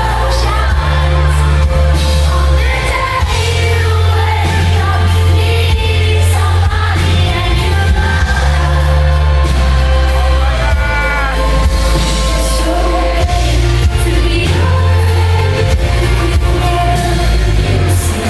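Live pop concert: a female singer with a full band, sung melody over sustained heavy bass notes.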